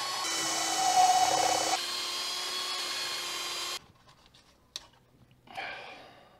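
Cordless drill with a small bit drilling into the plastic body of a seized ABS wheel-speed sensor, a steady motor whine that gets louder for about a second and a half near the start and stops abruptly about four seconds in. A single click and a short, fainter noise follow.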